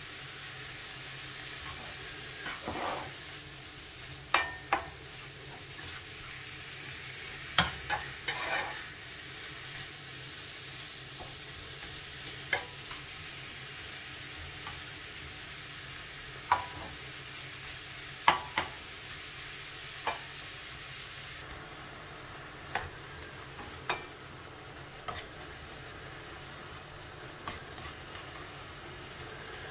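Meat and chopped onion sizzling in a frying pan, a steady hiss, while a spatula stirs them, scraping and clicking against the pan about fifteen times.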